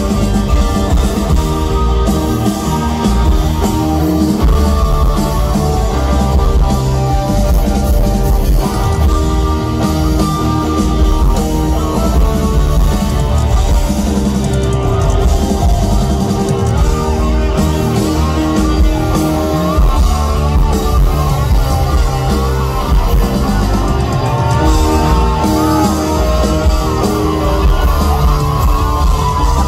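Live rock band playing loud instrumental outro music, heard from within the audience: electric guitars over drums and piano. A wavering, bending lead line comes forward in the last few seconds.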